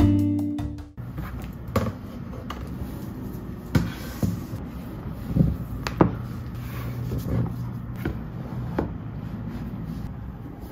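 Guitar music fades out in the first second. After it come scattered light knocks and clicks, roughly one a second, over a steady low hum.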